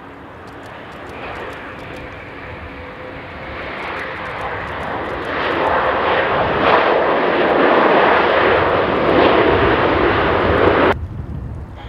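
Boeing 787-9's Rolls-Royce Trent 1000 turbofans on the landing roll just after touchdown: a steady jet rush that builds to a loud roar about five seconds in, the spool-up of reverse thrust, then cuts off abruptly near the end.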